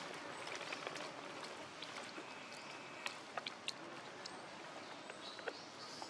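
Quiet outdoor ambience: a steady soft hiss with a few faint clicks, mostly past the middle, and a brief faint high tone a little after two seconds.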